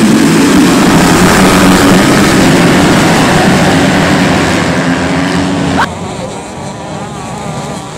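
A full field of motocross bikes at full throttle off the start gate, a dense mass of engines screaming together. About six seconds in it cuts off abruptly to a much quieter sound of a couple of dirt bikes on track.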